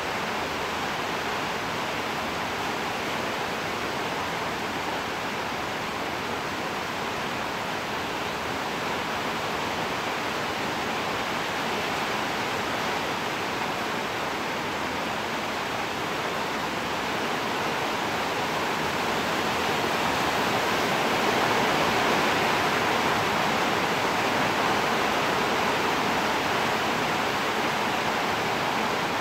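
Steady rain, an even dense hiss that swells a little about twenty seconds in.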